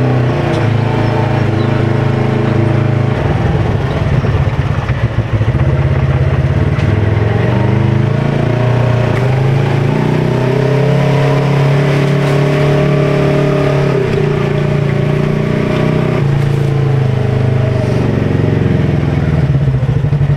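Polaris RZR side-by-side's engine running while riding off-road. The engine note shifts up and down several times with the throttle.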